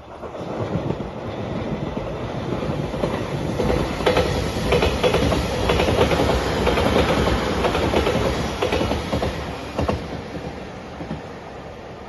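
A five-car JR Shikoku 8000-series electric limited express passing at speed, its wheels clattering over the rail joints. It builds over the first few seconds, is loudest in the middle as the cars go by, and fades toward the end.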